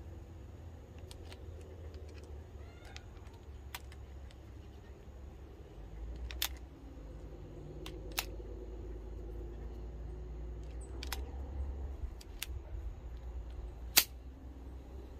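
Small metallic clicks of brass BB shells being handled and seated in the cylinder of a Schofield No. 3 BB revolver, the stronger ones about halfway through. One much louder, sharp metallic snap near the end as the top-break action is shut.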